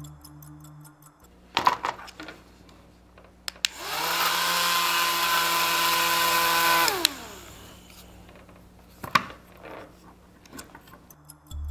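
Small DC hobby motor on a 9-volt battery spinning a plastic propeller: it spins up with a rising whir about four seconds in, runs steadily for about three seconds, then winds down in falling pitch when disconnected. A few handling clicks from the wiring come before and after.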